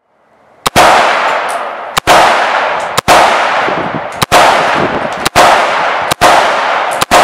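AR-15 rifle firing seven slow, evenly paced semi-automatic shots, about one a second, each sharp crack followed by a long echoing tail.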